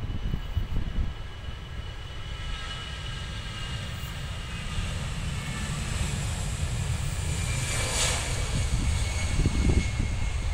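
Jet airliner engines running at takeoff power: a steady, loud rumble with a high whine on top, and a brief rush of noise about eight seconds in.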